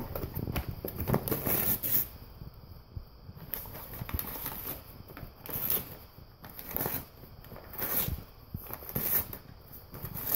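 English cream golden retriever ripping and crinkling a printed paper tax form with its teeth while pinning it with a paw, in irregular bursts of tearing and rustling paper.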